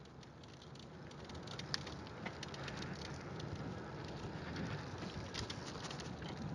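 Linear Limo recumbent bicycle rolling along an asphalt path, heard through a camera mounted on its frame: a steady hiss of tyre and road noise that grows louder over the first few seconds as the bike gathers speed, with scattered light clicks and rattles.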